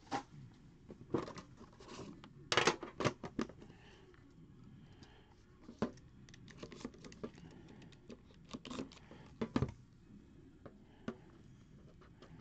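Handling of a metal trading-card tin and a cardboard card box: scattered clicks, taps and light scrapes as the tin is opened and the box is lifted out and handled, with a brief cluster of louder knocks about two and a half seconds in.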